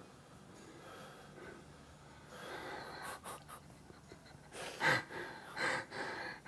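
A man breathing hard under the effort of dumbbell biceps curls, blowing out in short puffs through pursed lips, the strongest breath about five seconds in.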